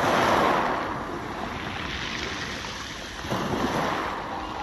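Small waves washing in over shallow water at the shoreline. One surge is loudest at the start and eases off, and another comes in a little after three seconds in, with wind on the microphone.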